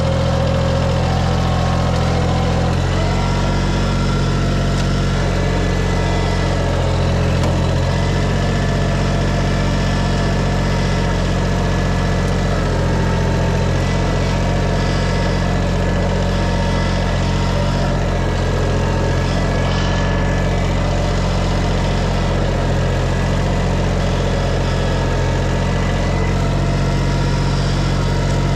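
An engine running steadily at a constant speed, with a small shift in its note about three seconds in.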